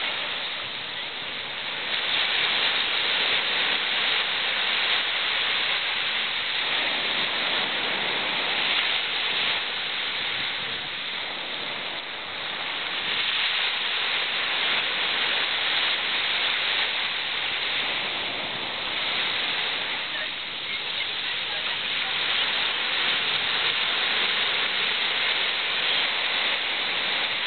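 Small sea waves breaking and washing up a beach: a steady rushing that swells and eases every few seconds.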